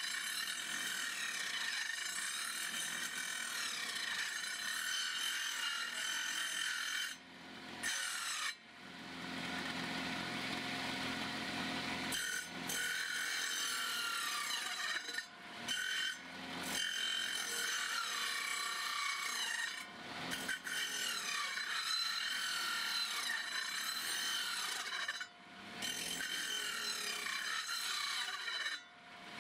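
Circular saw with an old blade slowly cutting through a wooden beam: a continuous high rasping whine of the blade in the wood. The sound drops out briefly several times, each time building back up as the blade bites again.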